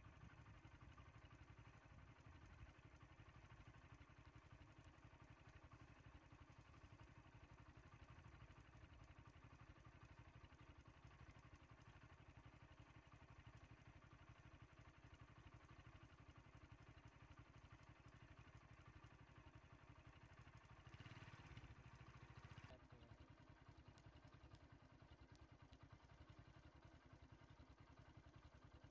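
Near silence: a faint, steady low rumble, a little louder for about two seconds a bit past two-thirds of the way through.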